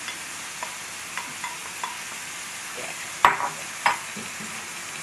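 Ground beef sizzling in a frying pan while a wooden spatula scrapes sauce from a metal bowl and stirs it through the meat. Light clicks of the spatula come early, and two sharp, louder knocks against the metal cookware come a little past halfway.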